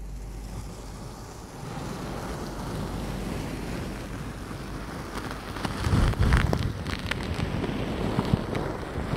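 Fluffy makeup brushes stroking and brushing the silicone ears of a binaural microphone: a continuous swishing rustle that grows louder and rougher about six seconds in, with low rumbling as the bristles press on the mic ears.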